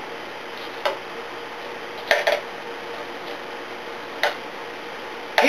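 A metal utensil clinking against a pan three times, short sharp knocks spaced a second or two apart, over a steady low hiss.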